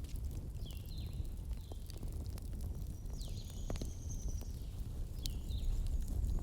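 Wood fire burning in a fireplace: scattered sharp crackles and pops over a steady low rumble of the flames, with a few faint high whistling tones.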